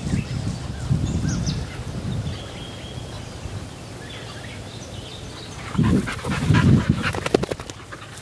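A dog panting and snuffling close by, in two spells: one in the first two seconds and a louder one about six seconds in, followed by a run of sharp rustling and clicking near the end.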